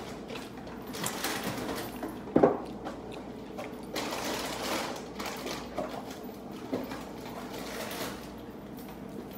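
Shrimp being peeled by hand and chewed close to the microphone: crackling, clicking eating noises, with a sharp knock about two and a half seconds in.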